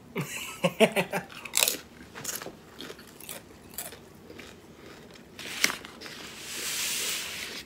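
Close-up biting and crunching of tortilla chips and pizza, a run of sharp crunches over the first few seconds, with a steady hiss for a second or so near the end.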